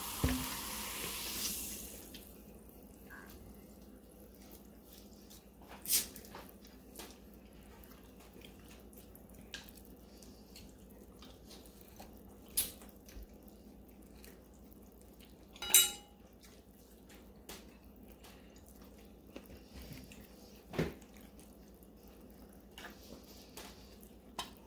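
Eating crab with the hands: wet sucking and smacking at shell pieces, with a noisy rush at the start and scattered sharp clicks, the loudest about sixteen seconds in.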